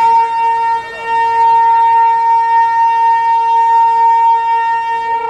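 Train horn sounding one long, loud, steady blast at a single pitch, dipping briefly about a second in before holding on.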